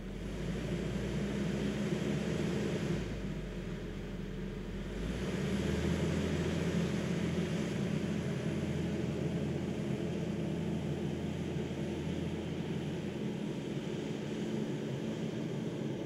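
Diesel engine of a JCB loader running steadily, a deep drone whose note rises a little about five seconds in.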